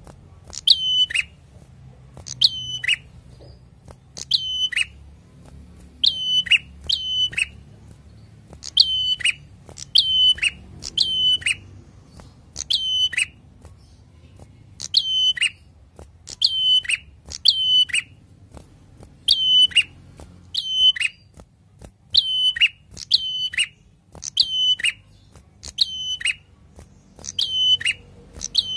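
Ashy tailorbird singing: a loud, sharp call note repeated every second or so, often in quick pairs, each note ending in a quick drop in pitch.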